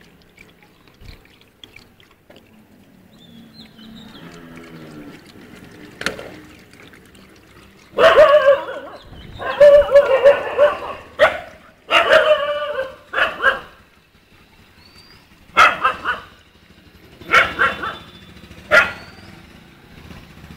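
Stray puppies barking: a quiet stretch, then a quick run of loud barks about eight seconds in, followed by a few single barks spaced a second or two apart.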